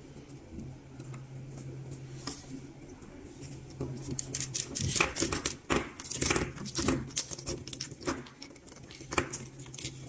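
Small plastic and metal fiber optic connector parts clicking and rattling as they are handled and fitted together by hand. Light handling at first, then a dense run of sharp clicks from about four seconds in.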